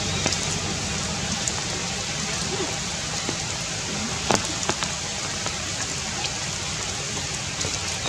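Steady rain falling on leaves, with scattered sharper drop hits and one louder tap about four seconds in.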